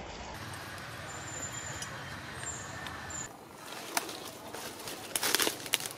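Dry leaf litter rustling and crackling as the monkeys shift about, with a sharp click about four seconds in and a burst of loud crackles about five seconds in.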